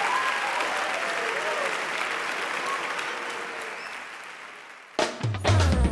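Studio audience applauding and cheering, with a few whoops, fading away over about four seconds. Loud backing music with a beat then starts suddenly near the end.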